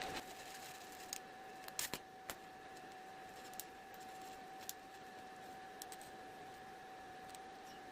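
TIG welding at low current with no filler: a faint, steady electrical whine over a light hiss, with a few scattered small ticks.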